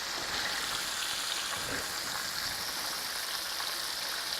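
Breaded turkey cutlets pan-frying in hot oil: a steady, even sizzle.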